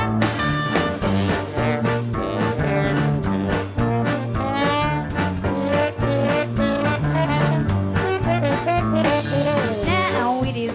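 Live band playing an instrumental break in swing style: a brass lead melody over a walking bass line and steady rhythm.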